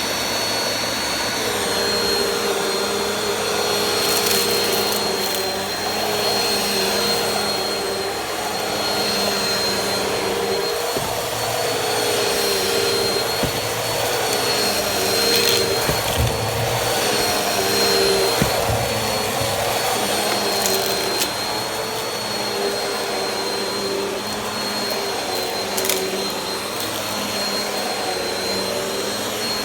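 Vacuum cleaner running steadily, a motor hum with a high whine over it that wavers a little in pitch as it is pushed across the floor, with a few brief clicks and knocks.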